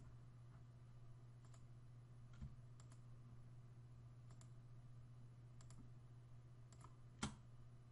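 Faint, scattered clicks of a computer mouse and keyboard, about nine of them, with the loudest near the end, over a low steady hum.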